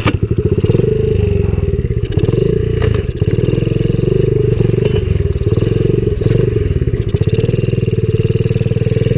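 Coolster 70cc pit bike's small single-cylinder four-stroke engine running under throttle. It comes in suddenly at the very start, then runs steadily as the bike is ridden along the trail.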